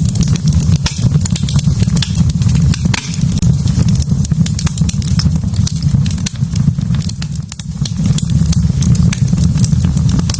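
Wood fire burning in a fireplace, with a steady low rumble and frequent sharp crackles and pops from the logs.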